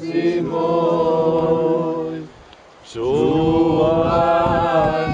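A small group of men singing a cappella in harmony, in the style of Dalmatian group singing. They hold one long chord, take a short breath about two seconds in, then hold another long chord.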